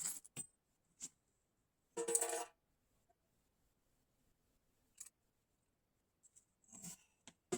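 Sparse clicks and knocks of a snare drum and its hardware being handled, with one brief ringing rattle about two seconds in.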